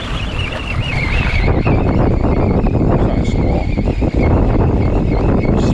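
Wind buffeting the microphone: a loud, steady low rumble that grows stronger about a second and a half in. A faint wavering high whine sits over it at first.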